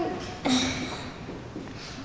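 A child's voice into a handheld microphone: one short vocal sound about half a second in, then a hesitant pause with only faint room noise.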